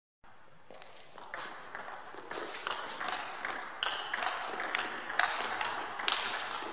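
Table tennis rally: the celluloid ball clicking off the rubber bats and bouncing on the table in quick succession, echoing in a large hall. It starts about a quarter second in, after a moment of silence.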